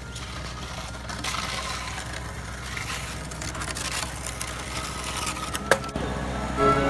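Rustling and scuffing from a handheld phone camera being carried while walking, over a steady low rumble, with one sharp click about five and a half seconds in.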